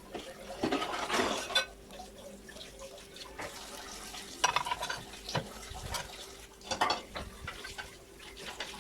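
Plates clattering and clinking as they are set into a dishwasher rack, in several separate knocks with short ringing.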